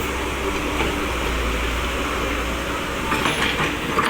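Excavator's diesel engine running steadily with a low hum.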